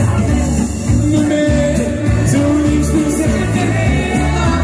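Live pop music: a song sung over instrumental accompaniment with a steady beat.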